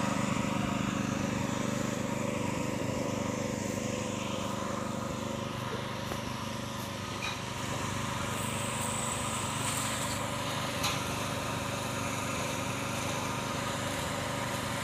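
A small engine running steadily, giving a constant droning hum.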